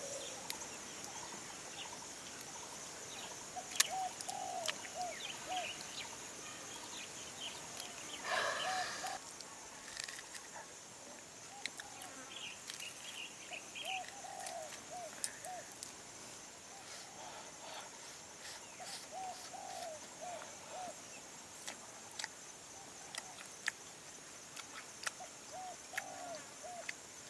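An animal calling in short groups of three to five low, arched hooting notes, repeating every few seconds, over a steady high buzz. Scattered sharp clicks throughout.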